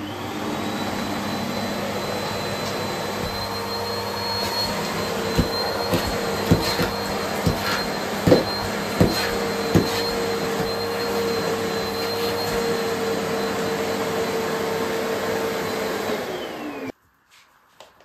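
Bosch bagless canister vacuum cleaner running with a steady whine, with a few sharp knocks a third of the way in. Near the end the motor is switched off: its pitch drops briefly and the sound cuts out.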